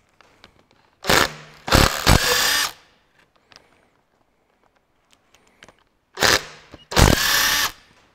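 Cordless impact wrench rattling off the side cover bolts of a Ferguson 23C diesel engine block: two runs of rapid hammering, each opening with a short blip and then hammering for about a second, some five seconds apart.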